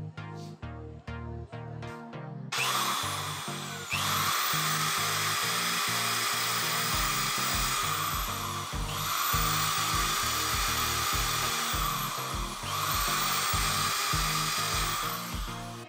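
Electric hand drill running as it drills into a laptop's plastic case at the hinge mount, starting about two and a half seconds in; its speed dips and picks up again three times and it stops near the end. Background music plays throughout.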